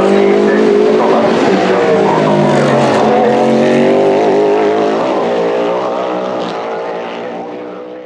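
Endurance racing car engines running at speed on track, several engine notes overlapping. The sound fades out over the last few seconds.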